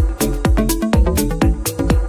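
Electronic dance music with a steady, fast beat and deep bass.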